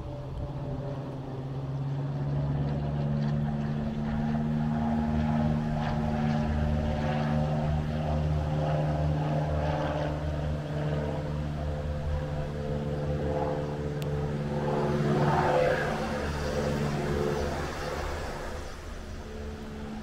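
Small airplane flying overhead, a steady engine drone that swells a little past the middle and fades near the end.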